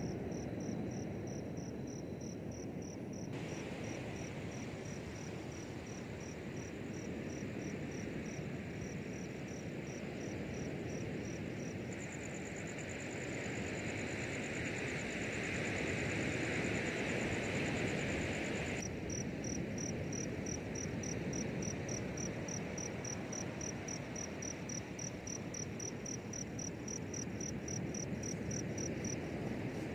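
Night insects, crickets, chirping in a steady high pulse of about four chirps a second. For several seconds in the middle a second, faster and higher insect trill joins in. All of it sits over a steady background rush.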